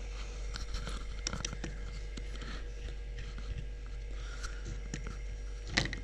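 Small plastic clicks and handling noises as a bulb and its holder are worked into a car window switch, with a sharper cluster of clicks near the end, over a steady low hum.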